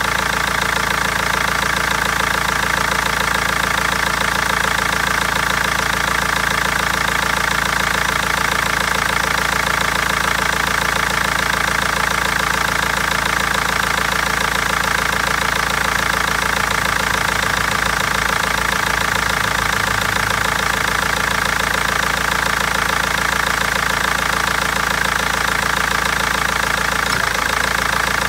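BMW 320d four-cylinder diesel engine idling with a clacking knock and misfires, which the owner suspects come from failing injectors or a lifter.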